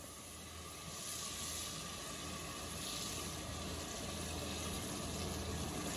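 Pieces of iguana meat sizzling in a cooking pan, a steady hiss that grows slowly louder.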